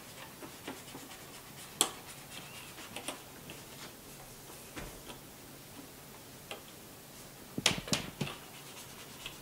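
Scattered light clicks and taps of a plastic hook and rubber bands against the pegs of a plastic band loom as bands are looped, with a short cluster of louder clicks near the end.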